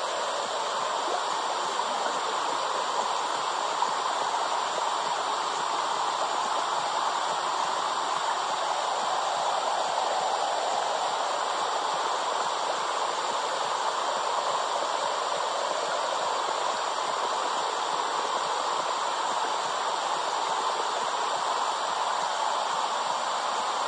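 Womb-sound track for soothing babies: a steady, even rushing hiss, strongest in the middle range, with no heartbeat or other beat in it.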